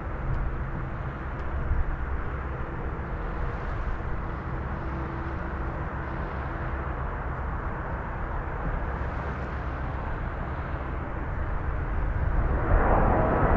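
Boeing 777-200 jet engines on approach to land, a steady rumble that grows louder near the end as a whine of engine tones comes in.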